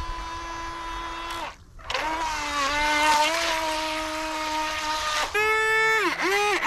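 Small electric RC boat motor whining steadily at high pitch, with water spray hiss, dropping out for a moment about a second and a half in. From about five seconds in the whine dips and rises in quick repeated pulses as the motor is revved while the boat lies capsized.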